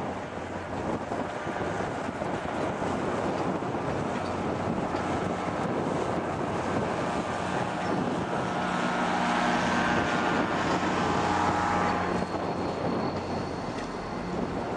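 Commuter rail diesel locomotive running as its train moves through the rail yard, with wind on the microphone. The engine's hum swells about two-thirds of the way through, then eases.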